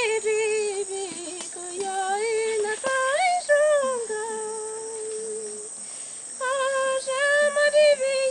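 A woman's solo voice singing a Shipibo icaro, a sacred healing song, unaccompanied. She holds long wavering notes and glides between pitches, with a brief break about six seconds in.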